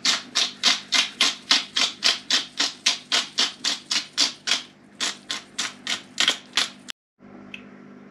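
Hand pepper grinder twisted back and forth over the pot, grinding a peppercorn mix in a steady rhythm of about four clicks a second. The grinding stops suddenly about seven seconds in.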